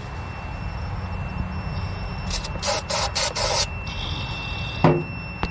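An aerosol can of brake cleaner sprayed in four or five quick hissing bursts, used as starting fluid on a mower engine that will not fire, over a steady low rumble.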